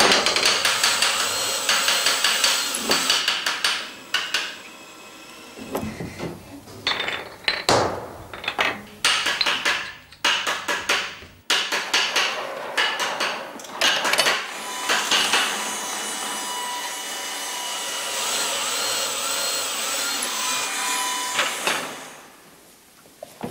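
Hand tools working metal: a dense run of sharp taps and scraping strokes at the start, then separate knocks and strokes. About two-thirds of the way in this gives way to a steadier sustained sound with a few held tones for several seconds.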